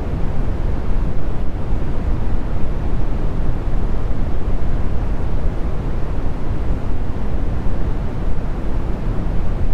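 Brown noise: a steady, even low rumble with little hiss, unchanging throughout.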